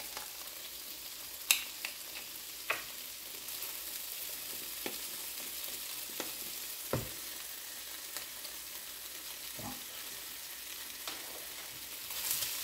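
Chicken breast pieces sizzling in a frying pan, with a few sharp clicks and knocks scattered through. The sizzle grows louder near the end as the pieces are stirred with a wooden spoon.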